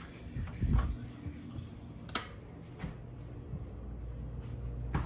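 Footsteps and a house door being opened on the way into a garage, with low thumps near the start and a sharp latch click about two seconds in.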